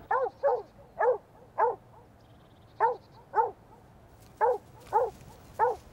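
Dog barking in quick pairs, nine short barks in all, each rising then falling in pitch. Listeners hear it as a happy, playful bark.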